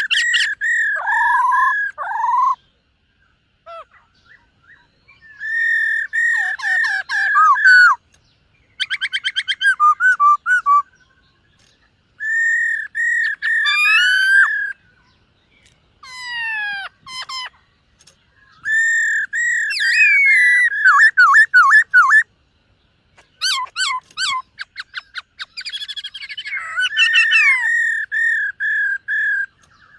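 Black-throated laughingthrush singing: about eight loud phrases of rapid repeated whistled notes, quick trills and swooping notes, each a couple of seconds long with short pauses between.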